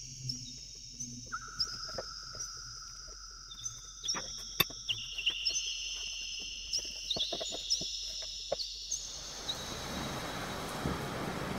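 An eerie backing track of several high, long-held tones, each starting with a short slide, layered over one another with scattered clicks. About nine seconds in it gives way to the steady hiss of heavy rain with thunder.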